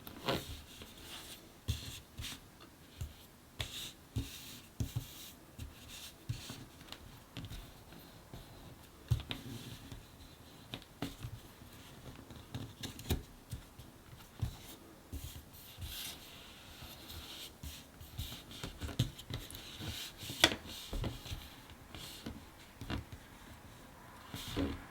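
Large cardboard jigsaw puzzle pieces being handled and pressed into place: irregular light taps, clicks and rubbing, with one sharper tap about twenty seconds in.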